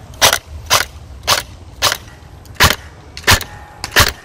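Beretta ARX 160 airsoft electric gun (AEG), fitted with aftermarket internals and an upgraded motor, firing single shots. There are seven sharp shots, about one every half second.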